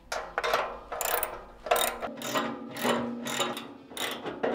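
Hand socket ratchet being worked back and forth to tighten a tube door's hinge bolts and nuts, its pawl clicking in repeated short strokes about two a second.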